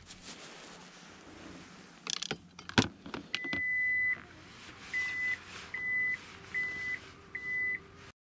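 A few knocks of fishing gear being handled, then an electronic beeper: one long beep followed by four short beeps about 0.8 s apart, with a faint motor hum under the last beeps. It sounds like the warning buzzer of a minivan's power tailgate closing.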